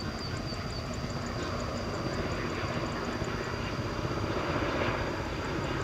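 Boeing 787 jet airliner on approach with its gear down: steady jet engine noise that grows a little louder about four seconds in.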